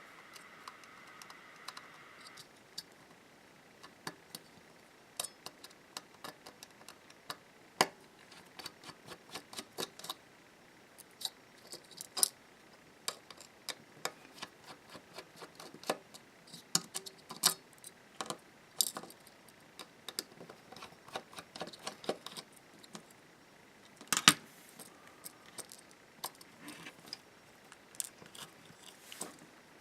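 Irregular small clicks and taps of a Phillips screwdriver and the small plastic and metal parts of a bike computer being handled and unscrewed, with one louder knock near the end.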